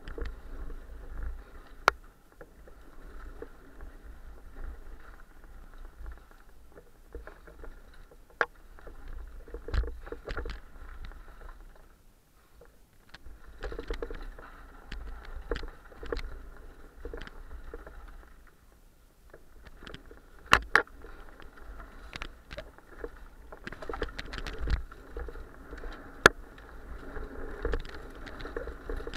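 Downhill mountain bike rolling fast over a dirt trail: a steady rattle of the tyres and bike over the rough ground, broken by sharp knocks from bumps and roots. The noise drops away briefly twice, then picks up again.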